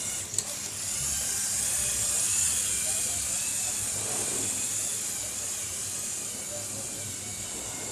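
Small electric motors and plastic gears of a remote-controlled Lego Technic truck whirring steadily, with a faint wavering whine as the speed changes and a single click about half a second in.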